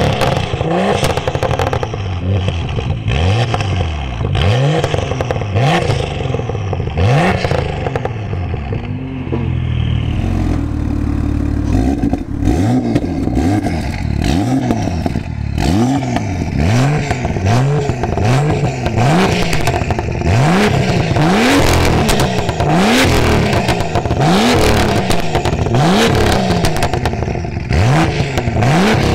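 BMW M2's turbocharged straight-six, decatted and breathing through an Fi valved exhaust, being blipped repeatedly while standing, about one rev a second, each rising and falling in pitch. There are crackles and pops on the overrun between revs. The exhaust valves are switched between open and closed during the run.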